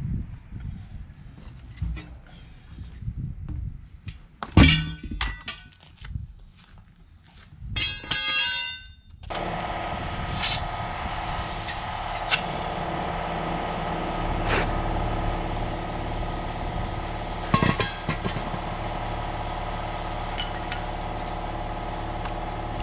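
Steel tire irons clanking and knocking against a semi-truck wheel and rim as the tire is levered onto it. About nine seconds in, a steady running hum with hissing air starts as the tire is aired up through the hose. A couple of sharp pops come as the bead seats itself on the rim.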